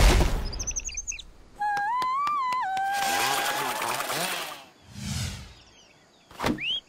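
A string of cartoon sound effects: a loud crash at the start, a whistling tone that rises and falls, a rushing noise, a low thud, and short rising chirps near the end.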